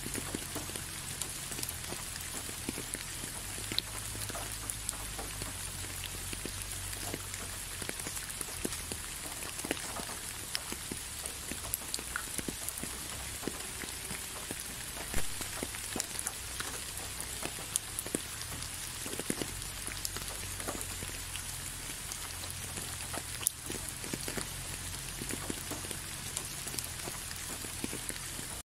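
Steady rain, a constant hiss with many scattered individual drops ticking through it.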